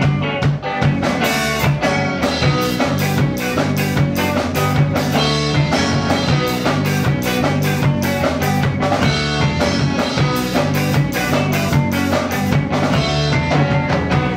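Live rock band playing: electric guitars, bass guitar and a drum kit keeping a steady beat on the cymbals. The music stops abruptly at the very end.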